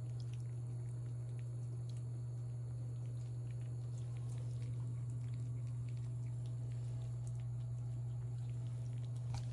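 Kittens eating, heard as many small chewing and lapping clicks, over a steady low hum that is the loudest thing throughout.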